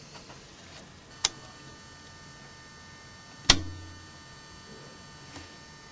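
Two sharp clicks of small phone parts being handled during disassembly, a faint one about a second in and a louder one a couple of seconds later, over a steady faint electrical hum.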